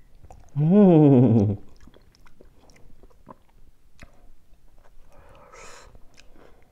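A man's drawn-out voiced exclamation of enjoyment, rising then falling in pitch for about a second, about half a second in. It is followed by soft eating sounds: chewing and light clicks of chopsticks on a small plate.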